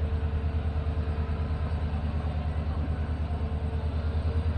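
Indian Railways passenger coaches rolling slowly past on the track: a steady low rumble with a fast, even pulsing.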